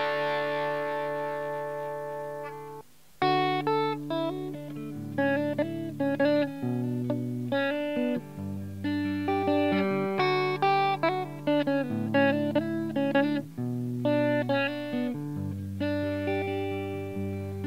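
Electric guitar played through a small hand-built tube amp. A chord on the crunch channel, with bridge humbucker and full crunch gain, rings out and fades over the first three seconds. After a brief gap comes clean-channel playing on the neck humbucker: picked chords and melody lines.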